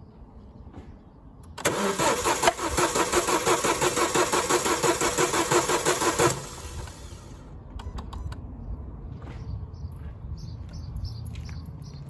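Renault Scenic's four-cylinder petrol engine being cranked over on its starter motor for about five seconds, with a rhythmic pulsing beat, during a compression test on cylinder 2. It starts about a second and a half in and stops abruptly, and a few sharp clicks follow.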